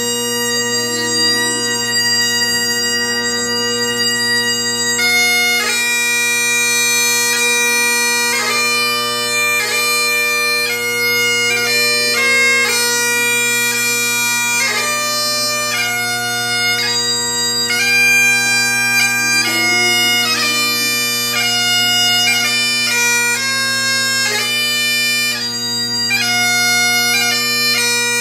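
Great Highland bagpipe played solo: the drones sound steadily beneath the chanter, which holds one long note for about five seconds and then moves into a melody with quick grace notes.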